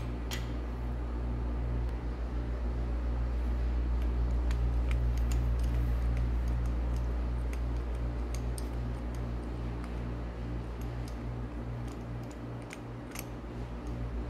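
A steady low machine hum with a quick even pulse, with a few sharp metallic clicks as a torque wrench works the overhead bolts on a Caterpillar 3406B cylinder head, the loudest just after the start and about 13 seconds in.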